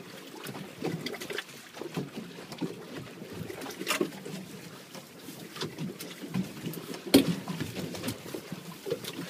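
Water slapping against a small boat's hull, with wind on the microphone and a few sharp knocks, the loudest about seven seconds in.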